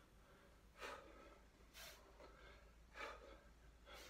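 Faint, heavy breathing of a man mid-exercise: four breaths about a second apart.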